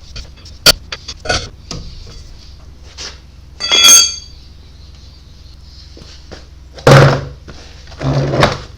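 Handling sounds of tools and metal parts: a sharp click, a ringing metallic clink about four seconds in, then two heavier thunks near the end.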